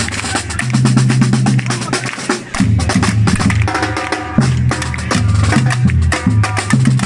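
Live band music: a held bass line under busy, fast drum and percussion hits.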